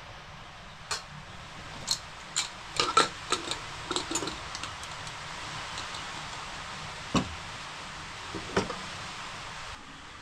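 A metal spoon clinking and scraping against a metal rice pot and steel plates as cooked rice is dished out: a quick run of sharp clinks in the first few seconds, then two single clinks later on.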